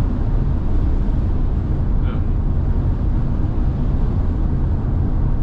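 Steady low road and wind noise inside the cabin of a moving Tesla Model Y, an electric car with no engine sound, driving in strong gusty wind.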